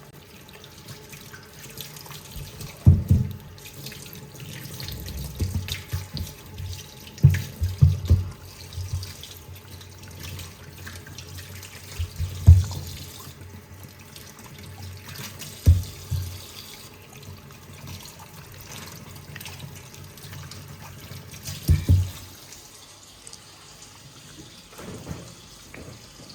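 Tap water running into a kitchen sink while things are washed, with several dull clunks of items knocked against the sink.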